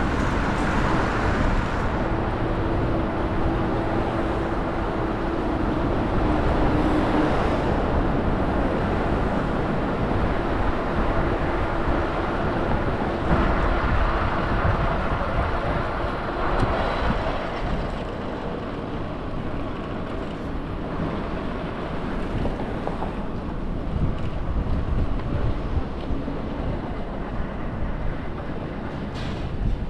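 City street traffic noise: a continuous wash of passing vehicles, with a steady engine hum rising out of it twice for a few seconds each.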